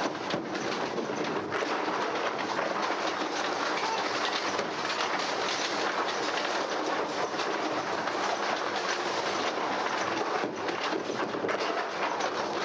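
Bowling alley: a steady rolling rumble of balls on the lanes with frequent sharp clatters of pins, played from an old vinyl sound-effects record.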